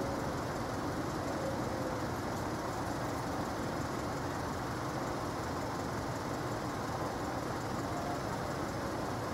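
Steady low rumble of idling vehicle engines, with no distinct events.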